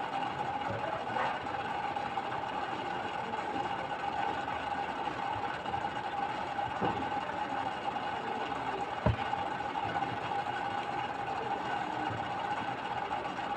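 Steady mechanical hum with a constant whine, and one sharp thump about nine seconds in.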